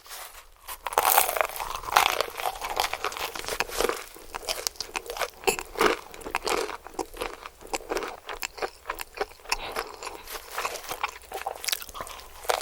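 Close-miked biting and chewing of crispy KFC fried chicken: a dense run of crunching and crackling breading that starts suddenly, with the loudest crunches in the first two seconds.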